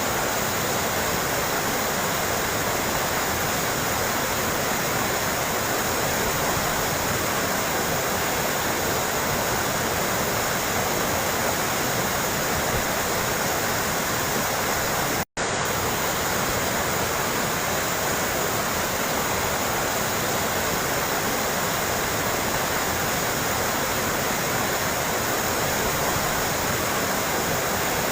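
Steady trickling, flowing water, an even unbroken rush. About halfway through it cuts out for a split second, then resumes unchanged.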